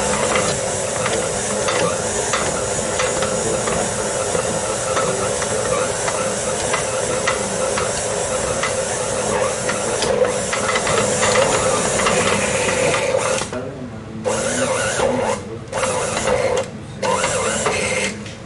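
Electric mixer running steadily as it kneads a stiff fresh egg-pasta dough, with a grinding, rasping churn. Near the end it cuts out briefly about three times.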